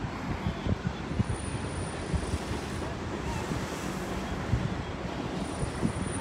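Wind buffeting a phone's microphone outdoors: an uneven low rumble with irregular thumps over a steady background hiss.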